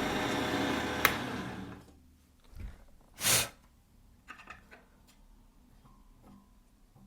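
Parkside bench pillar drill running, then shut off with a click about a second in and winding down to a stop. A short hiss follows a little past three seconds, then a few light knocks.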